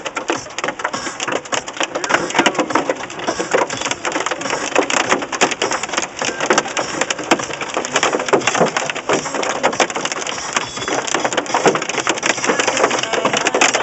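Heavy wind-driven rain drumming on a car's windshield and roof, heard from inside the cabin as a dense, unbroken patter of hits.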